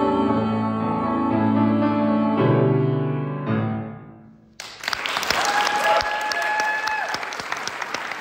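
Soprano singing a final held note over a grand piano, which plays two closing chords and dies away; applause breaks out about four and a half seconds in, with one long held cheer among the clapping.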